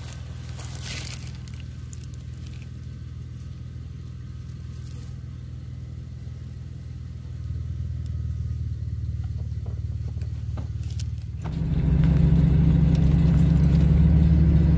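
A steady low hum that jumps sharply about three-quarters of the way through into a much louder, steady low rumble of a car driving, heard from inside the car.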